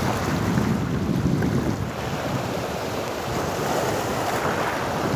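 Wind buffeting the microphone over the steady wash of small sea waves breaking. The low wind rumble is strongest in the first two seconds, then eases.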